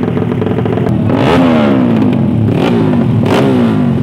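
Race-tuned motorcycle engine running steadily, then revved in three sharp throttle blips about a second apart, the pitch falling away after each one.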